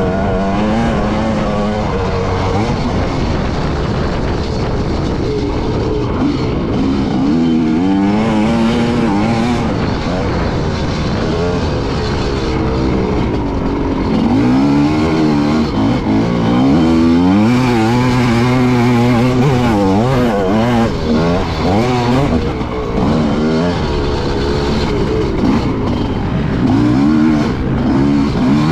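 Motocross bike engine revving up and down, its pitch rising and falling again and again as the rider accelerates, shifts and slows through the turns.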